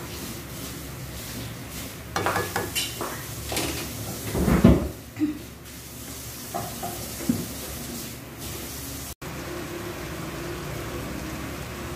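A plastic spatula stirring and scraping beef simmering in broth in a stone-coated nonstick pan, with a cluster of knocks and scrapes against the pan between about two and five seconds in, the loudest a dull knock, over a steady simmering hiss. After a short break near the end, a steadier sizzle of the reduced sauce.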